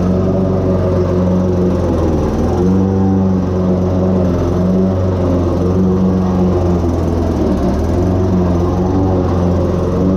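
Toro Recycler self-propelled lawn mower running steadily while it cuts overgrown grass and weeds, its engine note wavering a little as the load changes.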